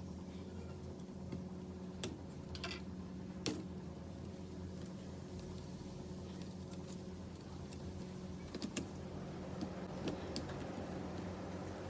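Scattered light clicks and taps of small laptop parts and tools being handled during disassembly, over a steady low hum.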